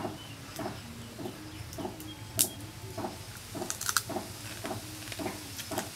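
Crunchy bites into fried crab shell: a few sharp cracks, the loudest about two and a half seconds in and a cluster about four seconds in. Behind them an even, repeating pulse goes on about two or three times a second.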